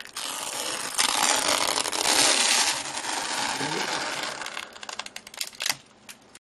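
Brown tape being peeled off a painted canvas: a long tearing rasp, loudest in the first half, then a run of scattered crackles near the end.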